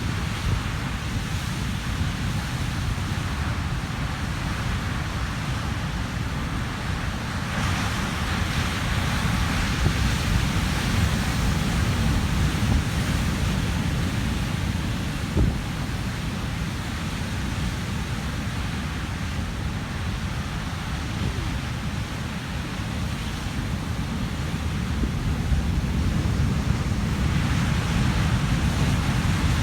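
Atlantic surf breaking and churning on a rocky shore at high tide, a steady rushing wash with wind buffeting the microphone. A wave's rush swells about a quarter of the way in and again near the end.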